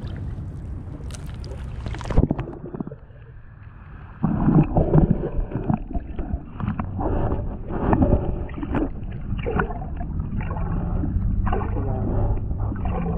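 Water splashing as an action camera is pushed under the surface in shallow water about two seconds in. After that, the sound is muffled and underwater, with irregular thumps and gurgles of water moving against the camera.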